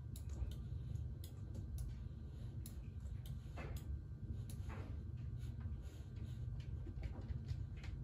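Faint, irregular light clicks over a low, steady hum, with two short falling swishes a little past halfway.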